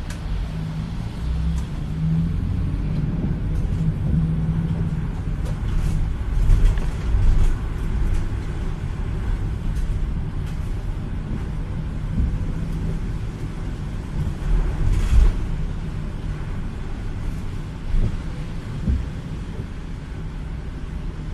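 Low, steady rumble of a car's engine and tyres heard from inside the cabin while driving slowly on wet pavement in the rain, with a few brief louder swells.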